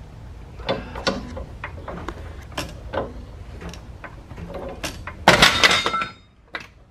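Scattered sharp metal clicks and knocks as a new sway bar end link is pushed and worked up into the sway bar, with a louder rattling clatter about five seconds in.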